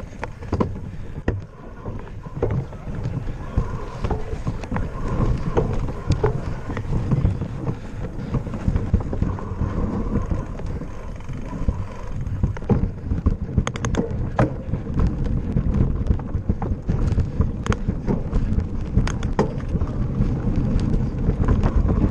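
Mountain bike rattling over a bumpy dirt forest trail, a constant low rumble of wind buffeting the camera microphone with many sharp clicks and knocks from the bike, more frequent in the second half.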